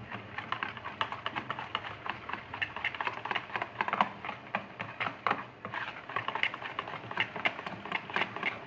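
A spoon beating thick jalebi batter in a bowl, clicking and tapping against the bowl's side in quick, uneven strokes, several a second. This is the mixing-in of the baking powder and Eno that leaves the batter ready to fry.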